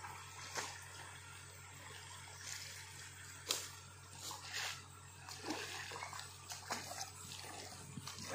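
Water splashing and dripping from a wet cast net as it is pulled out of a muddy creek pool and held up. The sounds come as scattered short splashes and trickles, with one sharper splash about three and a half seconds in.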